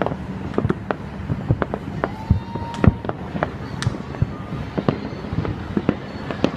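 Fireworks going off, with many sharp bangs and crackles a second in an irregular rapid string, and a short steady whistle about two seconds in.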